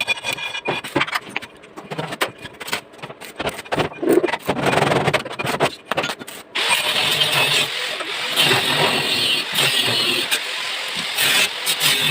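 Irregular knocks and clatter, then about six and a half seconds in a motor starts suddenly and runs steadily with a loud, hissing whine.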